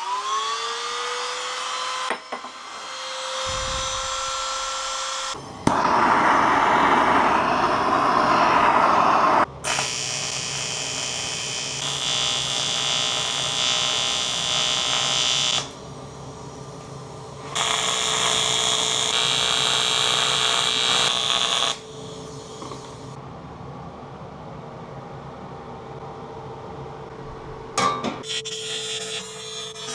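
Workshop sounds edited together with abrupt cuts. First a handheld electric power tool spins up and cuts into 2 mm aluminium sheet, then there are longer stretches of steady buzzing from a TIG welding arc on aluminium.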